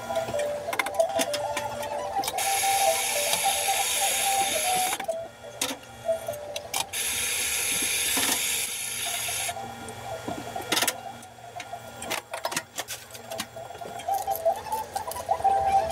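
Espresso machine hissing twice, about two and a half seconds each, amid quick clinks and knocks of cups and a scoop at the counter. Background music plays at the start and near the end.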